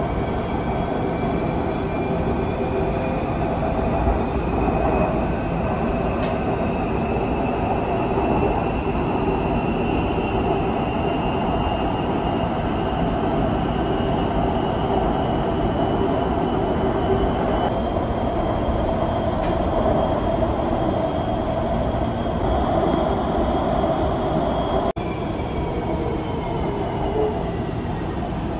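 Electric train of the CPTM Expresso Aeroporto heard from inside the carriage while running: a steady rumble of wheels on track, with a whine that climbs slowly in pitch as the train gains speed, then holds, and drops in pitch near the end.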